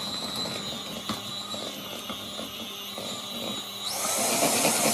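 Electric hand mixer running steadily, its beaters whisking all-in-one sponge cake batter of margarine, flour, sugar and eggs in a mixing bowl; about four seconds in it gets louder and harsher.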